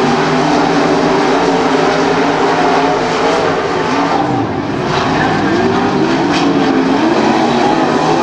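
Several dirt modified race cars' V8 engines running hard in a race, their overlapping engine notes rising and falling. The sound dips briefly a little past halfway, then comes back.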